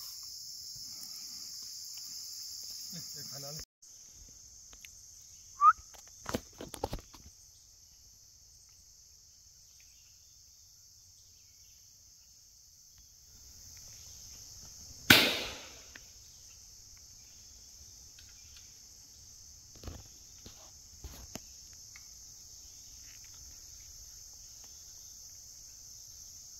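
A single rifle shot about halfway through: one sharp crack with a short echoing tail, over a steady high drone of insects. A short chirp and a few fainter clicks come earlier.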